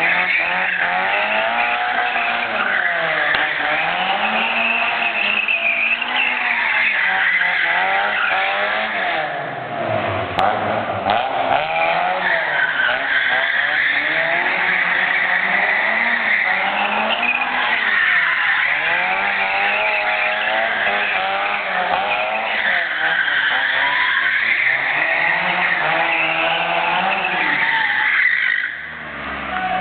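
Toyota AE86 Corolla's engine held at high revs in a sustained drift, its pitch rising and falling again and again while the tyres squeal. The revs drop briefly about ten seconds in and again near the end. The uploader calls the engine's running a misfire.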